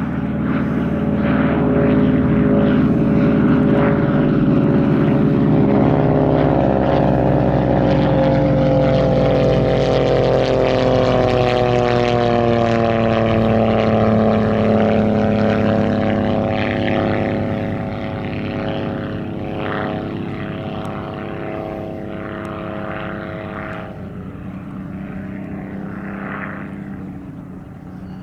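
Propeller airplane flying past: a steady engine drone that builds to loud, its pitch sliding down as it goes by about halfway through, then fading away.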